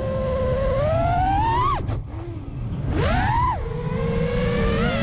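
FPV freestyle quadcopter's brushless motors whining as heard from its onboard camera. The pitch climbs with each throttle punch and drops sharply when the throttle is cut, about two seconds in and again about three and a half seconds in, then climbs again near the end. A low rumble of wind on the camera's microphone runs underneath.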